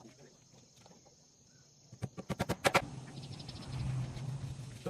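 A quick run of sharp knocks or taps about two seconds in, followed by a low hum.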